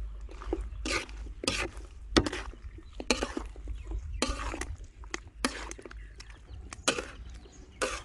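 Metal spatula scraping and knocking against a steel wok while stir-frying chicken drumsticks and greens. The strokes are short and irregular, about one every half second to a second.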